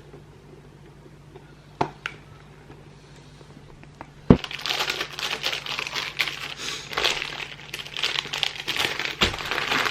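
Packaging crinkling and crackling as it is handled and opened, probably the wrapper of the defrosted gingerbread dough. It starts with a sharp knock about four seconds in and keeps going, after a quieter start with one light knock.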